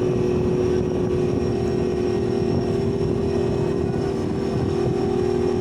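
Fishing boat's engine running at a steady speed, a constant loud drone with a strong even tone.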